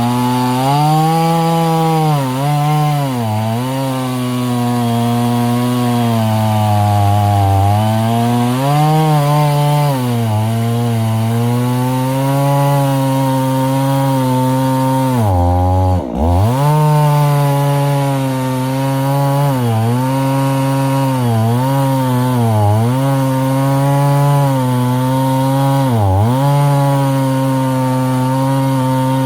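Husqvarna 50 Rancher two-stroke chainsaw running at high revs. Its pitch sags and recovers again and again, with one deep, brief drop about halfway through.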